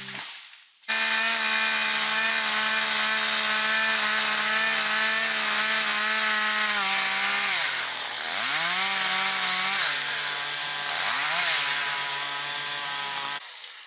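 Two-stroke chainsaw running at high revs. Its engine note sags and picks up again twice in the second half, then the sound cuts off abruptly near the end.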